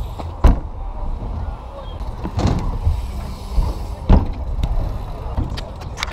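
BMX bike tyres rolling on concrete ramps with a steady low rumble. Three sharp knocks come about half a second, two and a half and four seconds in, the first as a rider lands a jump.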